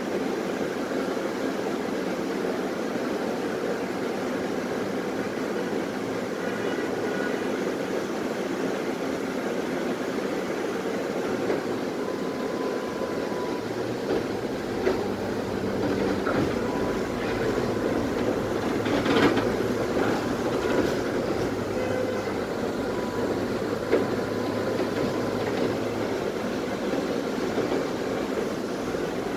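Tatra T3SU tram heard from inside the car: a steady running rumble, a deeper hum that comes in about halfway, and a handful of sharp wheel knocks on the track, the loudest about two-thirds of the way through.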